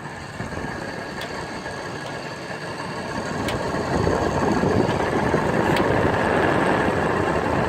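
Fedders window air conditioner's fan spinning down after being unplugged, making a rough, rattling drone that grows louder about four seconds in, with a light tick about every two seconds. The fan is loose on its shaft, which the owner gives as the cause of its unique sound.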